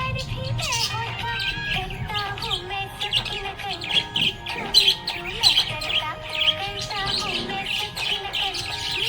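Budgerigars chirping in a continuous, busy stream of short, high chirps and sliding notes, with no pauses.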